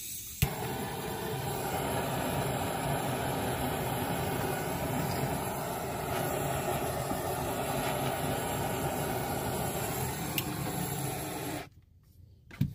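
A steady mechanical rumble with hiss, mostly low-pitched, that starts with a click about half a second in and cuts off abruptly near the end.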